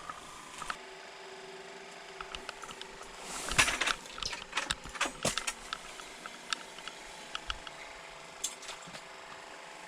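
Scattered clicks and knocks of fishing gear being handled on the ice, with a brief rustling burst about three and a half seconds in followed by a quick run of sharper clicks.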